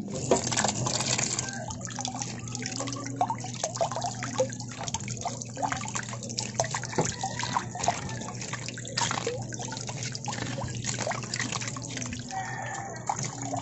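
Tap water running and splashing over vegetables in a basin while hands rub a red onion clean under the stream, with many small splashes and drips throughout.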